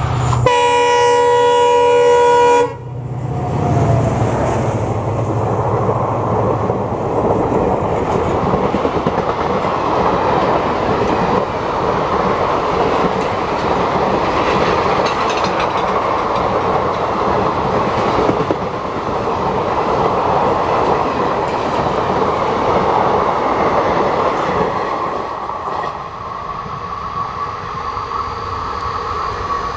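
A WDP4D diesel locomotive sounds one long blast on its horn as it approaches, and the horn cuts off about three seconds in. The coaches then run past with a steady rush and clatter of wheels on the rail joints, dropping in level near the end as the last coach goes by.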